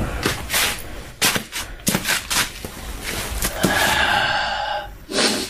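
Sharp knocks and clicks of a camcorder being handled and set in place, several in quick succession. About three and a half seconds in comes a held, pitched sound lasting over a second.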